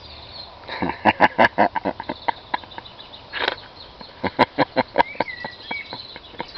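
Two quick runs of short, sharp clicking sounds, about seven a second, one starting about a second in and another about four seconds in, with a brief bird-like chirp shortly after five seconds.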